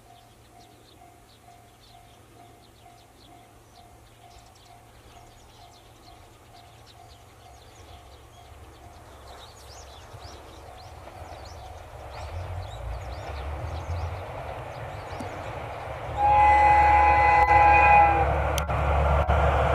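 Kyoto Tango Railway 'Tango no Umi' diesel limited express (KTR8000 series) approaching. A faint level-crossing bell rings about twice a second for the first half. The diesel engines' rumble then grows steadily louder, and about sixteen seconds in the train sounds its horn for about two seconds before roaring on.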